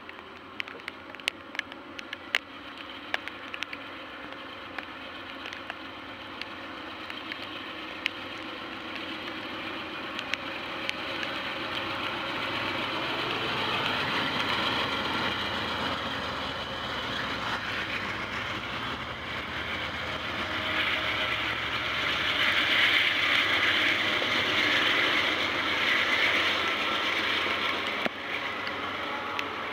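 Amtrak passenger train led by two P42DC diesel locomotives passing close by: the locomotive engines grow louder as they come past. The Superliner cars then roll by with steady wheel-on-rail noise that is loudest in the last third. A scatter of sharp clicks comes in the first few seconds.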